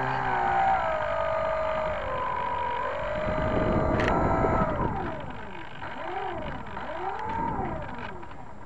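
Electric motor and propeller of a Hype Cessna 400 Corvallis RC model plane whining, picked up by a small keychain camera on the tail. The pitch wavers with throttle, a rush of wind noise comes in about three seconds in, and near the end the whine swoops up and down several times.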